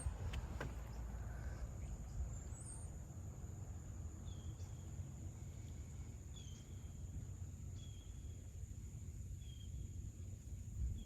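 Outdoor waterside ambience: a steady high-pitched insect drone, with a bird giving a short chirp every second or two from about four seconds in, over a low rumble.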